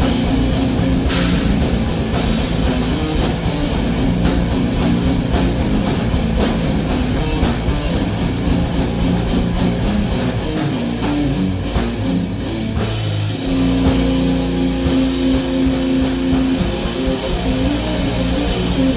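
Live improvised rock jam built on two notes, E and F, with electric guitar and drum kit playing together and a long held note about two-thirds of the way through.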